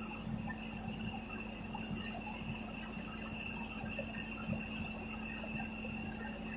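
Bulldozer's diesel engine running steadily: a constant hum with a high whine above it.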